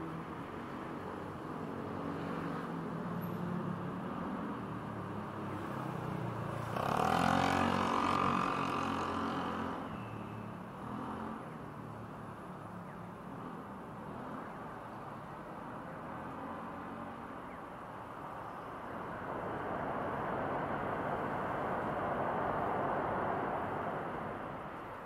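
Road traffic heard from above: slow-moving cars with a steady hum of engines and tyres. About seven seconds in, a vehicle accelerates past, the loudest moment, and the traffic noise swells again for a few seconds near the end.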